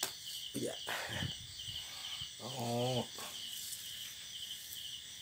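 Field crickets chirping steadily in the background, an even train of about two to three short high chirps a second. A man's brief voiced sound about two and a half seconds in is the loudest thing, with a short rustle near one second.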